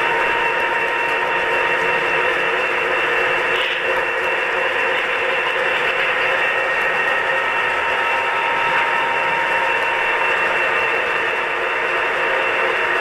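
HO scale model train running: a steady hiss with several constant whining tones, unchanging throughout.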